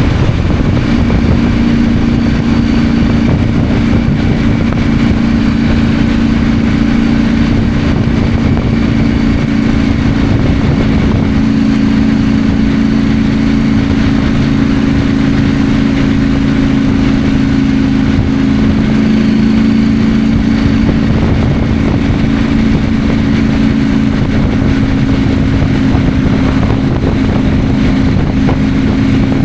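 KTM 890 Adventure's 889 cc parallel-twin engine running at a steady cruising speed, its note holding an even pitch, with constant wind and road noise.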